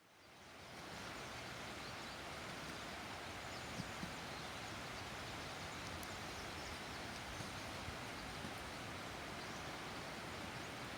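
Faint, steady outdoor background noise that fades in over the first second, with two soft clicks about four seconds in.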